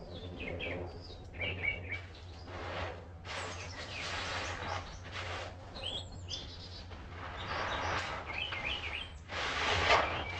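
Wild birds chirping loudly in short repeated calls. Over them come several bursts of splashing and squishing from a soap-paste sponge being squeezed and rinsed in water, the loudest near the end.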